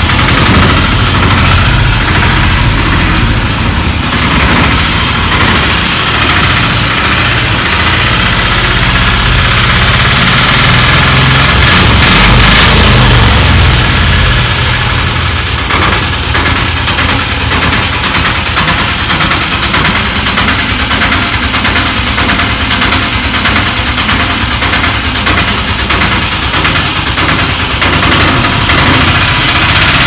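An old auto rickshaw's engine idling loudly and steadily while the vehicle stands parked, growing a little louder for a couple of seconds about midway.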